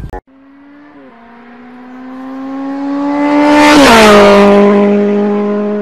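Race car passing by, as a sound effect: an engine tone that grows louder and creeps up in pitch, drops in pitch as it goes past about four seconds in, then fades away.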